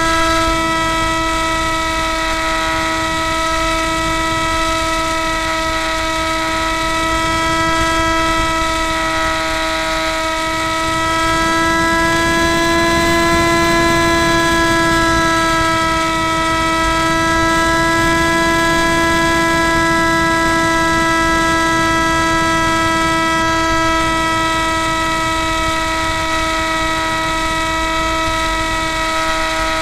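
Onboard sound of a Spyhawk FPV model plane's electric motor and propeller in flight: a steady whine with wind rush. The whine rises a little in pitch and loudness about twelve seconds in, then settles back.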